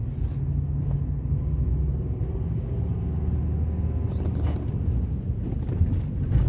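Steady low engine and road rumble heard from inside a moving car's cabin, with a few light knocks near the end.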